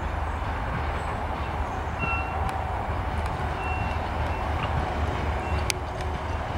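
Class 205 diesel-electric multiple unit approaching slowly, its English Electric four-cylinder diesel engine running with a deep, pulsing low rumble that grows gradually louder as it nears.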